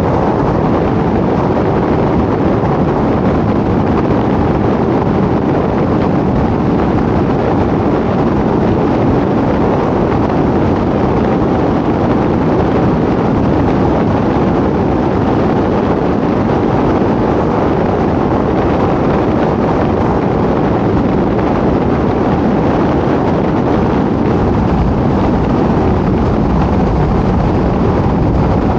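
Steady road and wind noise of a car driving at speed, an even rush with no changes.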